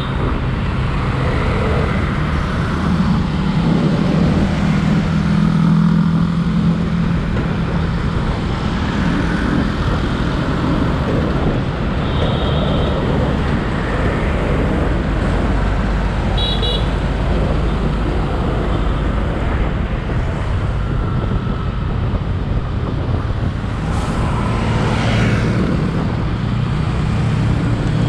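Highway traffic heard from a moving scooter: a steady rumble of engines and tyres from trucks, cars and motorbikes. Short high-pitched horn toots sound at the start and twice about midway.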